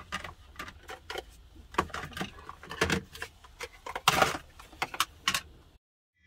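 Plastic food-storage containers and lids clicking and clattering as they are handled on a counter: a run of irregular clicks and knocks, the loudest a longer rattle about four seconds in. The sound cuts off abruptly just before the end.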